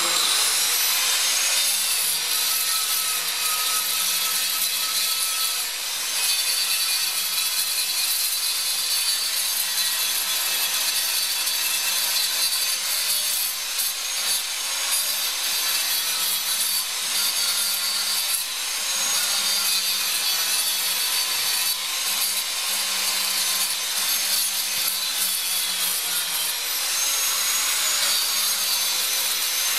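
Electric angle grinder running under load, its disc grinding away the cured fiberglass-and-resin rim around a repair patch: a steady high whine over a rasping hiss, the whine wavering a little as the disc works.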